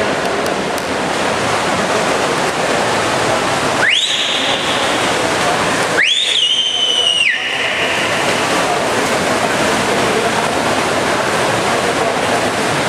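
Steady din of an indoor swimming pool hall, with two whistle blasts about 4 and 6 seconds in. Each rises sharply in pitch, and the second is held for over a second. They fit the referee's whistle calling swimmers to the blocks before a race.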